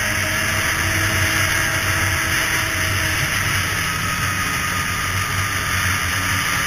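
Polaris two-stroke snowmobile running at a steady trail speed: a continuous engine drone mixed with track and wind noise.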